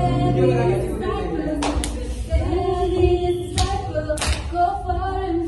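Voices singing together without instruments, holding long notes, with three short sharp sounds cutting in.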